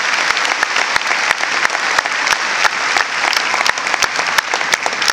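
Large audience applauding steadily: a dense, even clatter of many hands clapping, with single sharp claps standing out.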